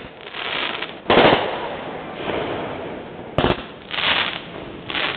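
Aerial fireworks bursting: a loud bang about a second in, a sharp crack around three and a half seconds in, and further bangs near the end, with crackling and rumbling between them.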